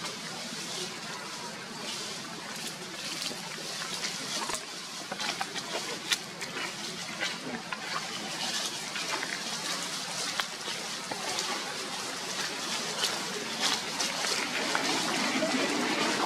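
Dry fallen leaves rustling and crackling under macaques moving over the leaf litter, an uneven run of small crackles that grows busier toward the end.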